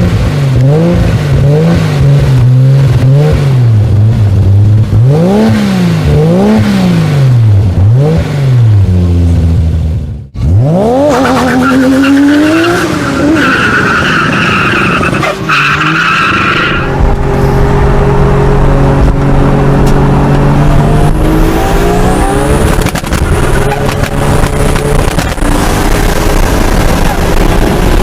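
Toyota Supra engine revved hard in repeated blips, rising and falling about five times. After a cut, the engine revs up and tyres squeal steadily for several seconds, then the engine holds a steady high drone.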